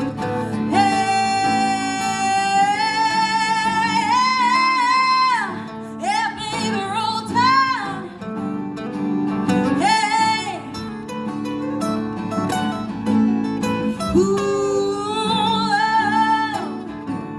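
A song with strummed acoustic guitar, the singer holding long wavering notes without words: one long note in the first few seconds, then shorter vocal runs.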